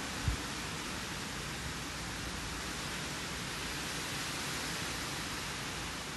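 Steady rain and wind in a storm, an even hiss, with one brief low thump just after the start.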